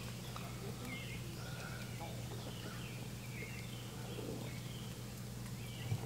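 Quiet outdoor ambience: a steady low hum with a few faint, short bird chirps scattered through it.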